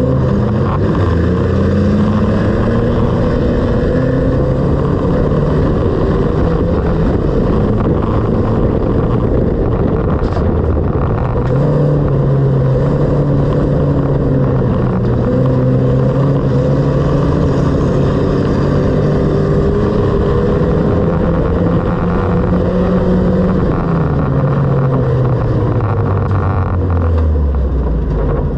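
Engine of a stripped-out banger racing car heard from inside its cabin, revving up as it accelerates, holding a steady pitch under load, then easing off near the end as the revs fall.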